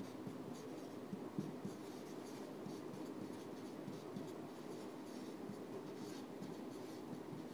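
Marker pen writing on a whiteboard: faint, irregular scratching and squeaking strokes of the felt tip across the board.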